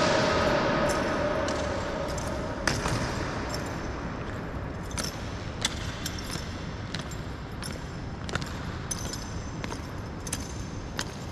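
Marching honor guards' boots striking a hard floor: sharp footfalls about one to two a second, echoing in a large hall. Over the first couple of seconds the echo of a louder stamp dies away.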